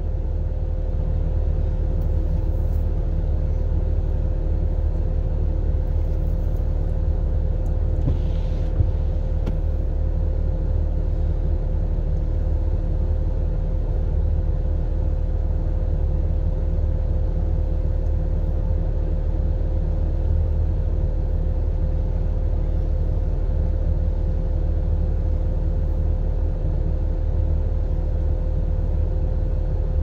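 A stationary four-wheel-drive vehicle idling, heard from inside the cab as a steady low rumble with a thin steady hum over it. There is one small click about nine seconds in.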